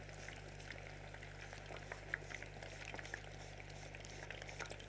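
Thin potato slices frying in a pot of hot oil: a faint, steady crackle with scattered small pops, over a steady low hum.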